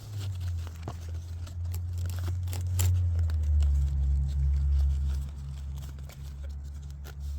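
Nylon plate-carrier gear being handled while side plates are fitted, giving scattered short clicks and rustles over a low rumble that is loudest about three to five seconds in.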